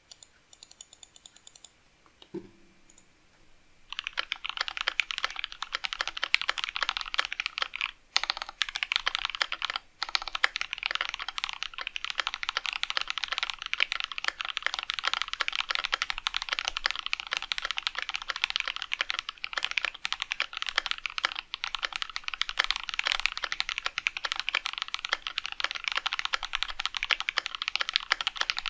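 Fast typing on a KBD67 MKII mechanical keyboard with Alpaca linear switches. A few light key clicks come first, then about four seconds in a dense, continuous clatter of keystrokes begins, broken by two brief pauses.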